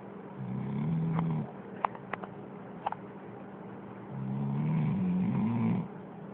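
A dog snoring: two low snores, the first about half a second in and lasting about a second, the second starting about four seconds in and lasting nearly two seconds, its pitch wavering near the end. A few faint clicks fall between them.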